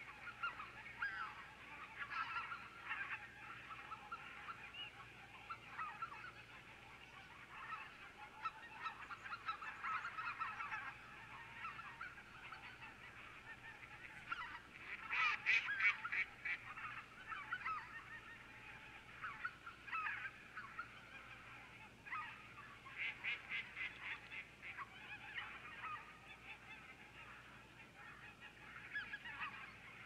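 A flock of wild geese on the water calling continuously, many short honking calls overlapping, with louder, busier bouts about halfway through and again a little later.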